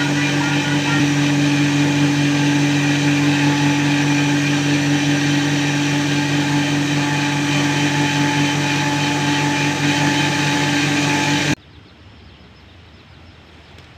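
Electric power tool motor running at a constant speed with a steady hum, cutting off abruptly about eleven and a half seconds in, after which only a faint background remains.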